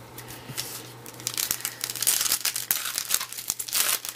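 Wrapper of a 2012 Topps Opening Day baseball card pack crinkling as it is torn open, a quick run of sharp crackles that thickens after about a second.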